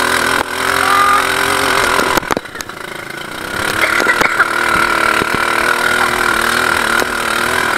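Off-road ATV buggy engine running under way, with a steady whine over it. It drops away for about a second just after two seconds in, then builds up again, with a few sharp knocks as the buggy jolts over the rough track.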